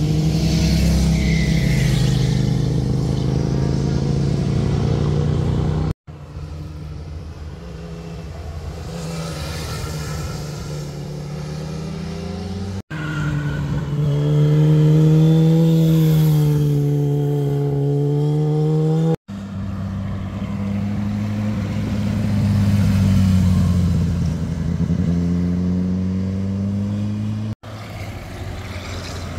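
A run of roadside passes by motorcycles and cars through a tight hairpin bend, switching abruptly to a new pass four times. The engine notes dip as the riders and drivers ease off into the turn and climb again as they accelerate out.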